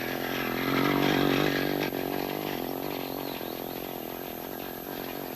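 A motor vehicle's engine running, growing louder for about a second and then slowly fading away, as if passing by.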